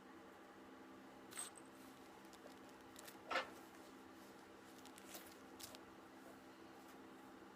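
Near silence: a faint steady hum with a few small clicks and ticks, the loudest about three seconds in.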